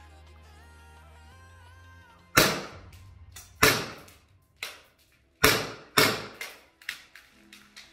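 SIG Sauer ProForce P320-M18 green gas blowback airsoft pistol firing: four sharp shots, irregularly spaced over the last five or so seconds, with a couple of fainter clicks between them.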